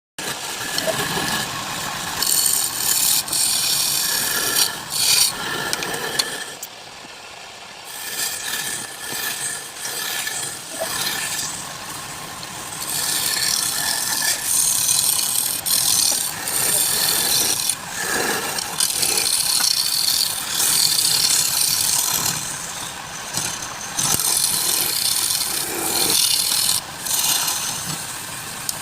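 Woodturning tool cutting a spinning wood blank on a lathe: a rasping, scraping noise that swells and eases as the tool is worked, with a short lull about seven seconds in.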